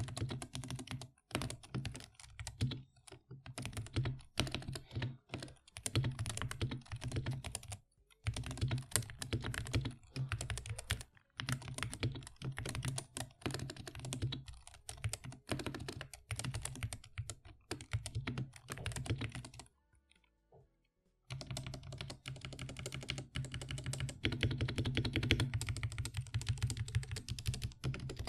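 Fast continuous typing on an Epomaker SK87 mechanical keyboard with factory-lubed Gateron optical red linear switches: quick overlapping keystrokes with a deep thock under the clack. It stops for a second or two about two-thirds through, then starts again.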